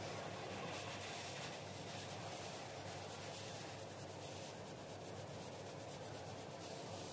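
Sandpaper on a hand sanding block rubbed back and forth over body filler on a car fender, in steady repeated strokes.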